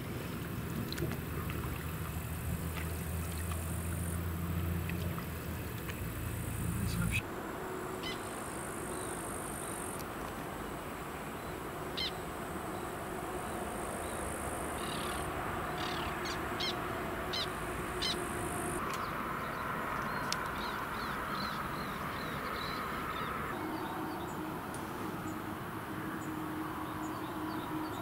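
For the first seven seconds an inflatable rowing boat being paddled, under a low steady rumble that stops abruptly. After that, birds call repeatedly in short sharp calls over a steady outdoor background.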